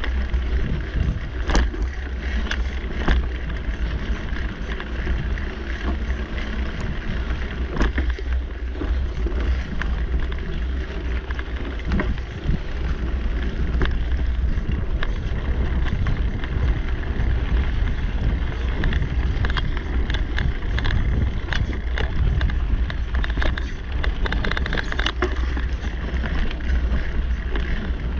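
Mountain bike riding along a dirt singletrack, heard from a camera mounted on the bike: a steady low rumble of riding and wind on the microphone, with frequent sharp clicks and rattles from the bike over bumps.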